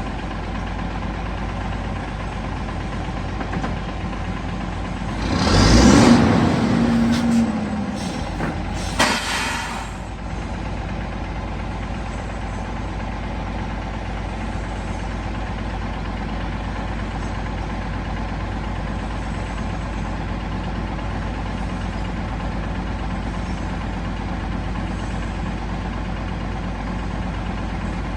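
Heavy diesel engine idling steadily with a knocking rattle; about five seconds in it briefly gets much louder for a few seconds, and a short sharp burst follows near nine seconds.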